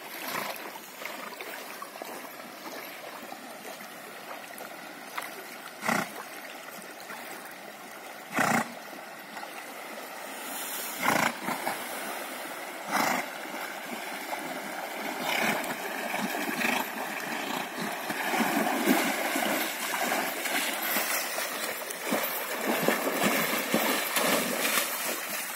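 Horses wading through a shallow river, their legs splashing through the water. The splashing gets louder over the last ten seconds or so as a horse climbs out onto the bank. A few sharp knocks stand out about six, eight and eleven seconds in.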